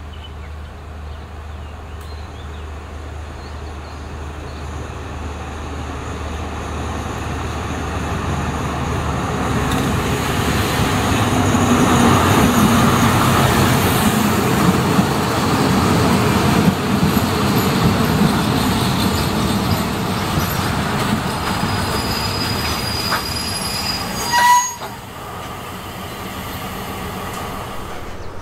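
An Alsthom diesel-electric locomotive draws closer and passes on the adjacent track, its engine loudest about twelve seconds in. Its passenger coaches then roll slowly past with steady wheel-on-rail noise. A brief, loud, sharp tone sounds once near the end.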